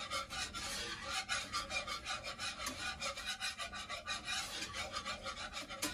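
A utensil scraping and stirring in a Teflon-coated nonstick skillet in quick, even strokes, about five a second, as flour browns in bacon drippings for a roux. The scraping on the pan's coating is hard enough to draw a warning not to scratch it.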